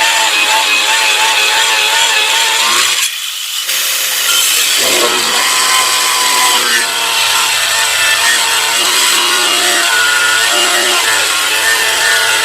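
Handheld electric tile-cutting saw running with its blade biting through plywood: a steady high whine over a harsh rasping cut. The cutting noise eases for a moment about three seconds in, then carries on.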